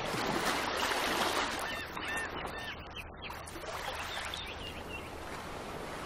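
Surf and wind noise at the shore, a steady rushing hiss, with a few short high chirps in the middle.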